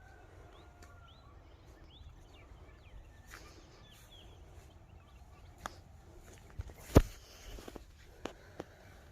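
Small bird chirps outdoors, short rising and falling calls over the first few seconds, followed by a handful of sharp clicks or knocks, the loudest about seven seconds in.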